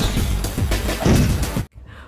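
Electronic background music with a heavy beat, cutting off suddenly near the end.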